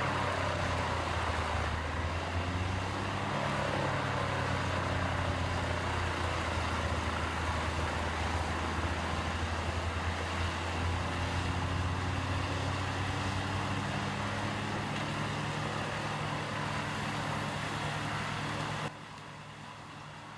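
Diesel engine of a large wood chipper running steadily, its hum under a broad rushing noise. Near the end the sound drops suddenly to a quieter engine hum.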